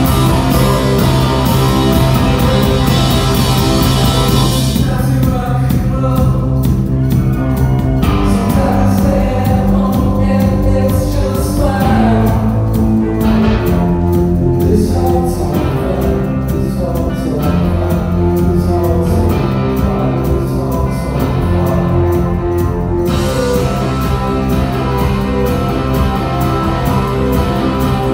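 Live indie rock band playing: electric guitar, keyboard and drum kit. Cymbals crash densely for the first few seconds, drop away for a long middle stretch where held keyboard chords change every second or two, and come back in near the end.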